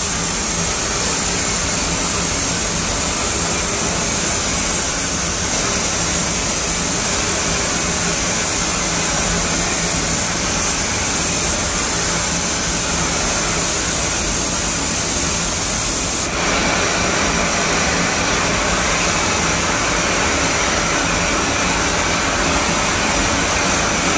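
Paint spray booth's ventilation running: a loud, even rush of air with a low hum under it. The tone of the hiss changes abruptly about two-thirds of the way through.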